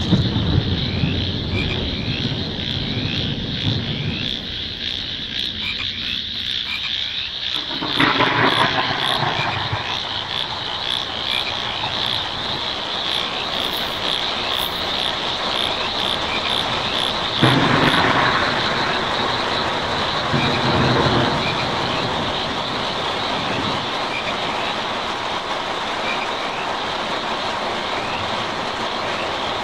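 Frogs croaking in a steady, repeating chorus over a continuous bed of night rain on a tin roof. A low rumble runs through the first several seconds, and the rain noise swells sharply about 8 seconds in and again about 17 seconds in.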